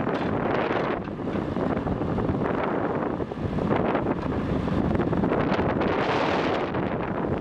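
Diesel engine of a JCB backhoe loader running steadily under work, with wind buffeting the microphone.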